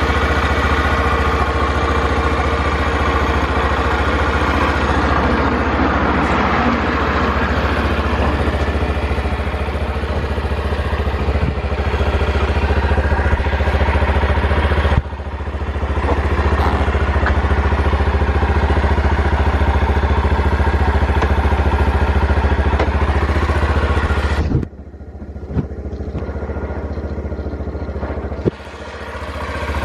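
Honda Super Cub 50 FI's small single-cylinder four-stroke engine idling steadily, running evenly with no unusual noises. The sound drops abruptly about halfway through and twice near the end, then picks up again.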